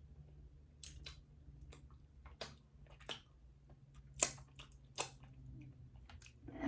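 Eating sounds from a crawfish boil: scattered sharp wet clicks and smacks of chewing and handling shellfish, the loudest a little past four seconds in, over a faint low steady hum.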